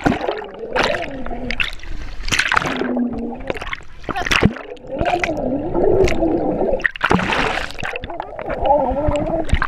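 Swimming pool water heard from underwater: muffled splashing and bubbling around the camera, with repeated sudden splashes. Muffled, wavering voices sound through the water.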